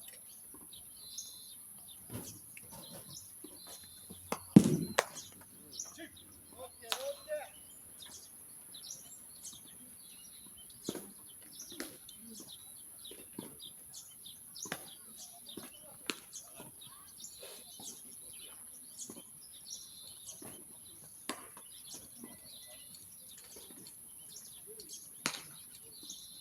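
Scattered short knocks and clicks over a quiet outdoor background with faint bird chirps, and one louder thump about four and a half seconds in.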